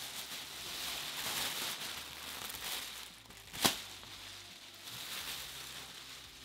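Plastic bubble-wrap packing rustling and crinkling as it is pulled out of a cardboard box, with one sharp snap about three and a half seconds in.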